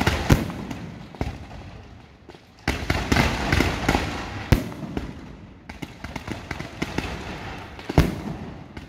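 Aerial fireworks display: volleys of shells launching and bursting in rapid succession, with sharp bangs over dense crackling. The loudest bangs come just after the start, about halfway, and near the end.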